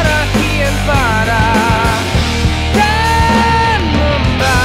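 Background music: a rock song with a sung melody of held, wavering notes over a steady bass.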